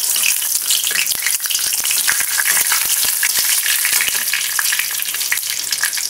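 Panch phoron seeds and a dry red chilli crackling and sizzling in hot mustard oil in a kadai, the tempering stage, while a metal spatula stirs and scrapes the pan.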